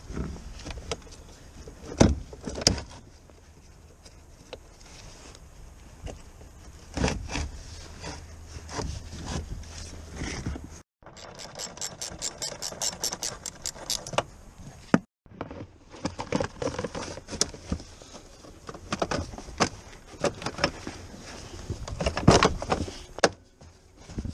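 Hand work at a car battery: knocks, clicks and plastic scrapes as the battery and its plastic cover are fitted, with a run of rapid, even ratchet clicks, about six a second, for a few seconds midway as the battery clamp bolt is turned.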